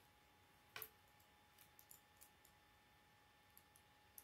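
Plastic K'nex rods and connectors clicking as they are pushed and snapped together: one sharp snap about a second in, then a few light clicks.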